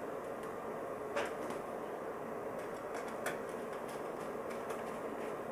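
Steady running hiss of an electric space heater's fan, with a couple of sharp clicks and a few light ticks from handling the wingtip parts as one is fitted to the wing.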